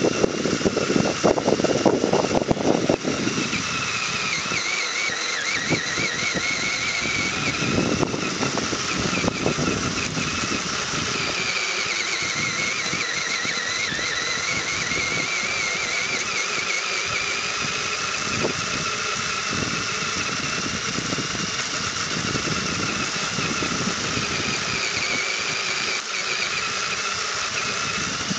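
Electric motor and gear train of an HPI radio-controlled rock crawler whining, the pitch drifting up and down as its speed changes. A louder low rumble comes in during the first three seconds and again briefly later.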